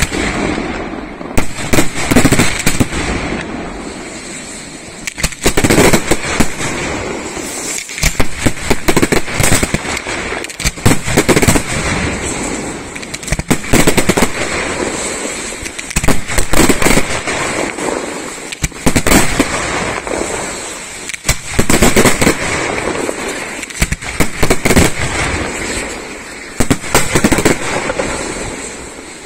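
Aerial firework shells bursting in a fast sequence: sharp bangs in clusters every second or two, with crackling between them.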